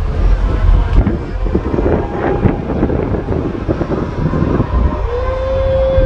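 Wind buffeting the microphone over the dense noise of a street parade crowd. About five seconds in, a long steady whistle note starts.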